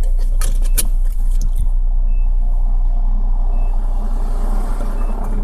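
Suzuki Splash with the engine running, a steady low rumble, and a short high-pitched single beep three times at about one-and-a-half-second intervals, with a few clicks in the first second. The beep is an unexplained fault beep that began after the battery went flat and the car was jump-started; it sounds as soon as the battery is connected.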